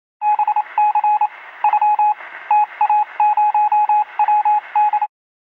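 Morse-code-style beeping: a single tone keyed on and off in short and long pulses over a radio-like static hiss, cutting off suddenly near the end.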